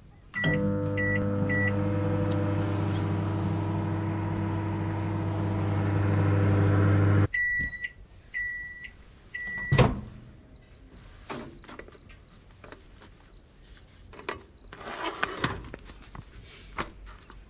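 Hisense microwave oven: three short keypad beeps, then the oven running with a steady low hum for about seven seconds. The hum cuts off and three end-of-cycle beeps sound, followed about ten seconds in by a sharp click of the door being opened.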